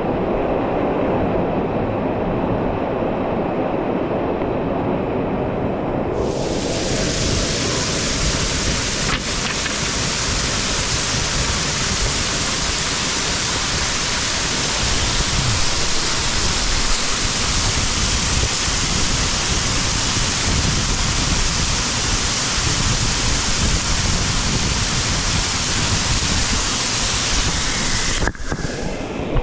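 Steady, loud rush of water from a cascading mountain creek. About six seconds in it turns brighter and hissier.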